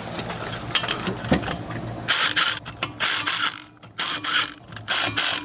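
Cordless impact wrench hammering in short repeated bursts, each about half a second long with brief pauses between, starting about two seconds in, as it works on the wheel lug nuts.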